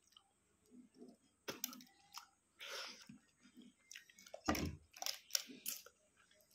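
Faint, scattered crackling clicks of a balut (boiled fertilized duck egg) shell being cracked and peeled by hand, with a duller knock about halfway through.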